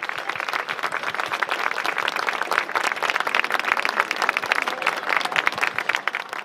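Audience applauding, a dense clapping from many hands that fades out at the very end.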